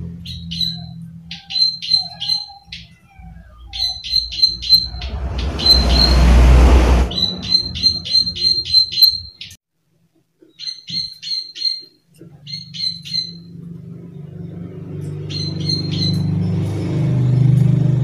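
Plain prinia (prenjak sawah) giving its sharp 'klik klik' call: runs of quick, high clicks, several a second, in bursts of about three to eight with short gaps between. A loud rushing noise comes about six seconds in, and a low hum sits under the calls in the last few seconds.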